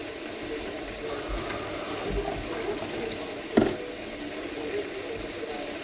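Food sizzling steadily in a frying pan on a hot hob, with a single sharp clack a little past halfway.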